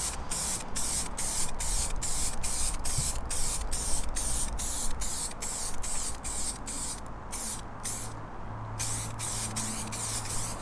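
Aerosol spray can of clear lacquer hissing in rapid short bursts as it is sprayed over gloss-black plastic bumper grilles, with a slightly longer pause about seven seconds in and again near eight seconds.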